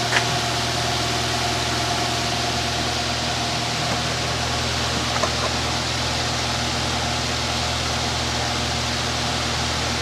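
Electric motor driving an 18-inch air-conditioner fan blade at speed: a steady rush of moving air over a low motor hum and a faint steady whine. There is a small click just after the start.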